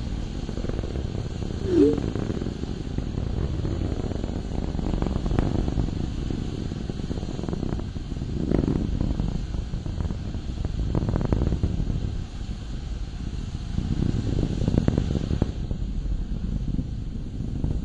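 Low rumble of an Atlas V rocket launch, the RD-180 engine's exhaust swelling and fading in slow waves. A short warbling blip sounds about two seconds in.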